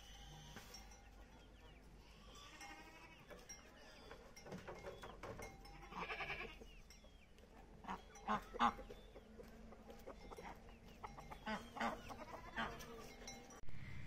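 Goat bleating a couple of times, among sharp knocks and clicks whose loudest strokes come about two-thirds of the way in.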